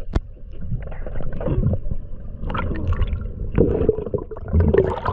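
Muffled gurgling and bubbling water heard with the camera underwater, with irregular knocks and sloshes from a diver moving below the surface.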